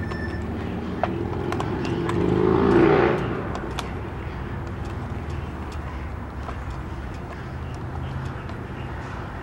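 A car driving past, its noise swelling with a slight rise in pitch to a peak about three seconds in, then fading, over a steady low rumble.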